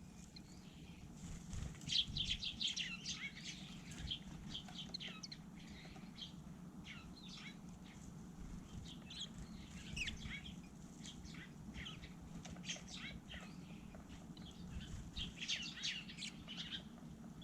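Small wild birds chirping in short scattered bursts, with a few busier flurries, along with some wing flutters.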